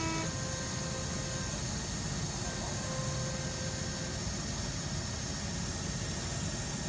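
Steady rush of air from a hot-air PCB rework machine's blower heating a QFP chip under the vacuum nozzle.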